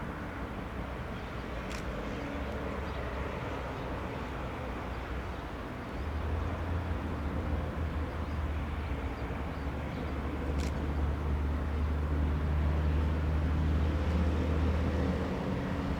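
Embraer ERJ-195's GE CF34 jet engines running at a distance: a steady low rumble that grows louder about six seconds in.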